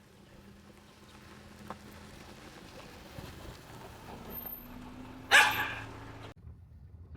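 Steady low hum of a car ride, with a rising engine note. About five seconds in there is one loud, short call that fades within half a second.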